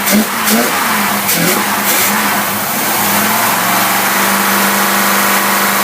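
Engine running on a freshly rebuilt Rochester Quadrajet four-barrel carburetor, held at raised revs equal to about 60 miles an hour. The revs shift a little at first, then settle and hold steady about halfway through.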